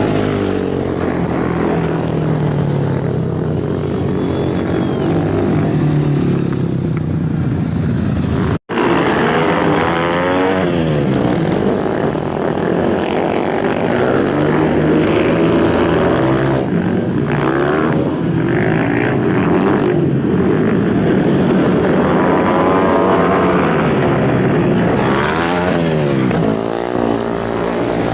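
Racing motorcycle engines running hard, several passing by one after another, with a brief abrupt break in the sound about a third of the way in.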